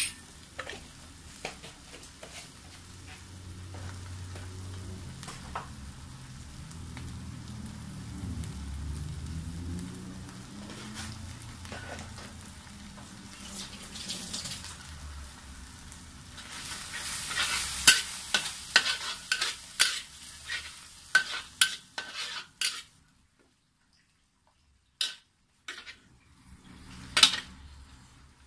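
A metal spatula stirs and scrapes in a wok as a garlic, dried prawn and chilli mixture fries with a soft sizzle, over a low hum. About two-thirds of the way in the scraping and clinking grows busier. Then it goes almost quiet, with a few single clicks near the end.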